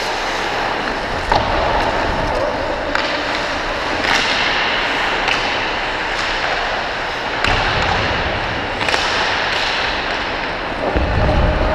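Ice hockey skate blades scraping and carving the ice close up, with sharp clacks of sticks and puck scattered throughout. A low wind rumble on the microphone swells near the end as the skater moves.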